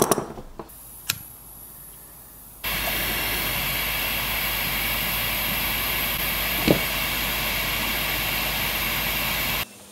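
A few clicks as a Nimrod butane soldering iron is lit, then its burning gas gives a steady, loud hiss that starts abruptly about three seconds in and cuts off just before the end.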